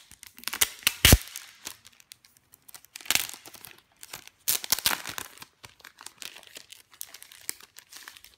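Clear plastic cellophane sleeve crinkling as hands pull it open around sticker sheets, in irregular crackles. The loudest sharp crackle comes about a second in, with further bursts around three and five seconds.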